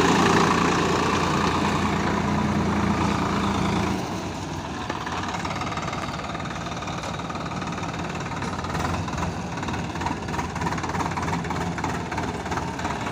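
Swaraj 744 XT tractor's three-cylinder diesel engine running steadily, loud and close at first, then quieter from about four seconds in as the tractor moves off along the road.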